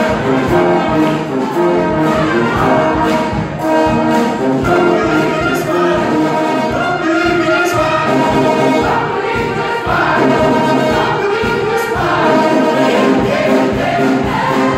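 Live brass band playing a funk-pop cover over a steady drum beat, with a choir singing along.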